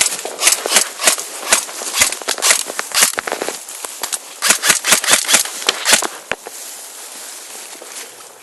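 Airsoft guns firing: a string of sharp snapping shots, singles and short rapid strings, for about six seconds, then the firing stops.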